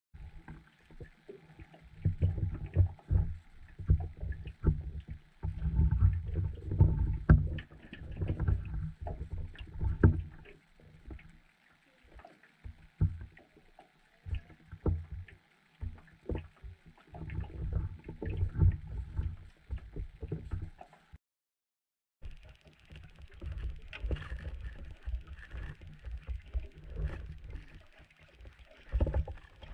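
Underwater audio from a GoPro sealed in its waterproof housing: irregular muffled knocks and low rumbling water noise as the weighted camera rig hangs and drifts just above the lake bottom. The sound drops out for about a second roughly two-thirds through, then resumes.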